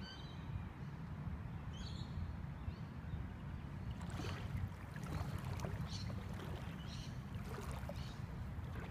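Small ripples lapping at the river's edge, with a few soft splashes from about four seconds in, over a steady low wind rumble on the phone's microphone.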